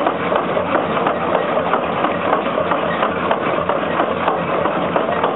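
Engine-driven machinery running steadily, with a dense clatter of small knocks.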